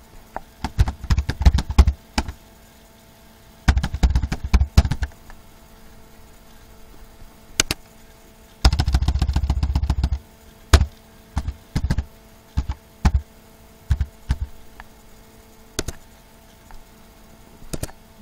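Computer keyboard typing: three quick bursts of keystrokes, then slower scattered single key presses and clicks.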